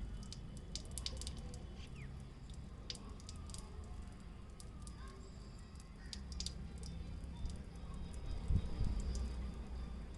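Water from a neti pot running out of a nostril and dripping, heard as many small irregular ticks over a low rumble. There is a louder low thump about eight and a half seconds in.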